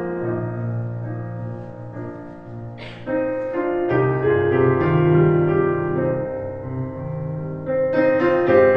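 Electric stage piano playing a slow song in sustained chords that change every second or two.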